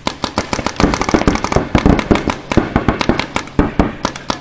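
Several paintball markers firing rapid strings of shots, the pops overlapping, densest through the middle and thinning out near the end.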